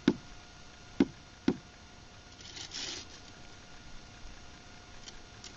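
Three sharp taps on a concrete block as it is set down into its mortar bed, two of them close together about a second in. About halfway through comes a short scraping rustle.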